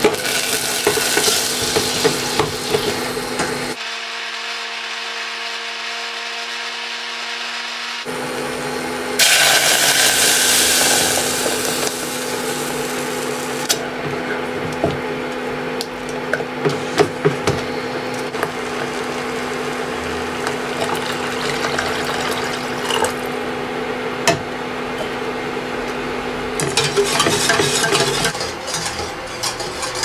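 Cooking in a small stainless steel saucepan: flour frying in oil with a steady sizzle, growing louder and brighter about nine seconds in, then a spatula stirring and knocking against the pot. A steady hum runs underneath.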